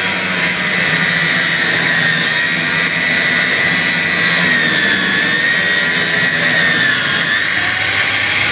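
Nine-inch angle grinder running steadily, a high whine that wavers slightly in pitch over a dense hiss.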